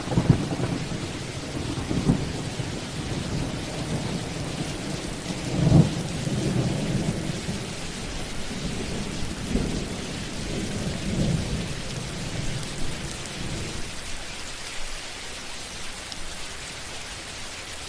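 Thunderstorm: steady rain with thunder rumbling again and again, the loudest roll about six seconds in. The thunder dies away after about fourteen seconds, leaving only the rain.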